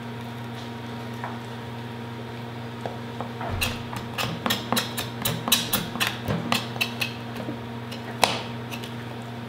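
Knife clicking and knocking against a cutting board and chicken bone as a leg is cut from the thigh at the joint: a run of short, sharp taps, several a second, starting about three and a half seconds in, with one louder knock near the end. A steady low hum runs underneath.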